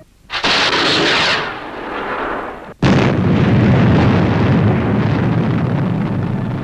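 Sound effects of a rocket missile launching: a sudden rushing hiss that fades away. About three seconds in it cuts sharply to a loud, deep, rumbling explosion that goes on to the end.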